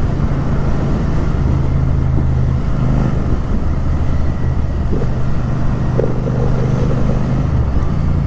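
Royal Enfield 650 parallel-twin motorcycle exhaust running at a steady, low, loud note.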